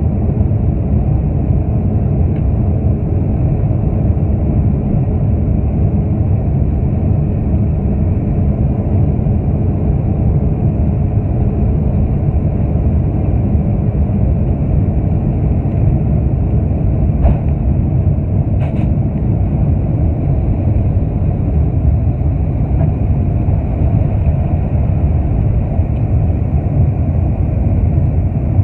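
Boeing 747-400's jet engines at takeoff thrust, heard inside the cabin behind the wing: a steady, deep roar through the takeoff roll and lift-off. Two brief clicks sound a little past halfway.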